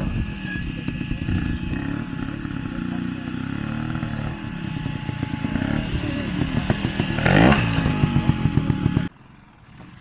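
Trials motorcycle engine running at low speed with short throttle blips as the bike climbs over rocks, with a sharp rising rev about seven seconds in. The sound cuts off abruptly about nine seconds in.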